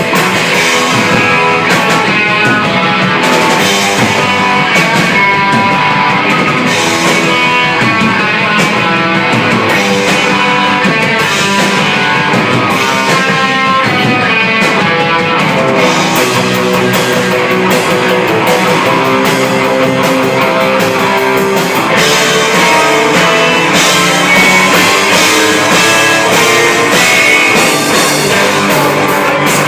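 Live punk rock band playing an instrumental passage on guitars and drum kit, at a steady loud level.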